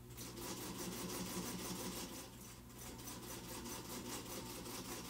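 Singer Featherweight sewing machine starting up and stitching at a quick, even rhythm of about seven stitches a second, its motor humming underneath.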